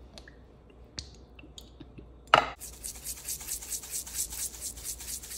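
A sharp knock a little over two seconds in, then a hand-twisted spice grinder grinding seasoning onto steaks in a quick, even rasping rhythm of about five strokes a second.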